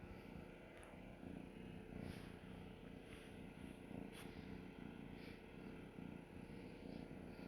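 Domestic cat purring, a faint steady low rumble, with a few soft rustles or ticks scattered through it.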